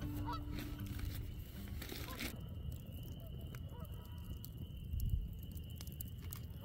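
Wood campfire crackling with scattered sharp pops over a low rumble, and a few faint bird calls in the background.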